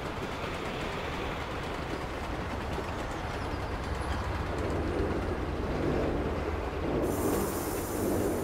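Passenger train running along an elevated railway viaduct: a steady rumble that grows louder through the second half, with a high hiss joining near the end.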